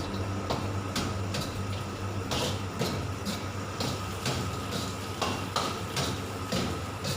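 Spatula scraping and stirring chicken and grated coconut in a dry wok, in repeated strokes about twice a second, over a steady low hum.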